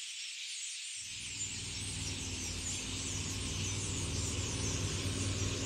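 A flock of sociable weavers chattering in fast, high chirps. From about a second in, a low steady rumble comes in underneath and slowly grows louder.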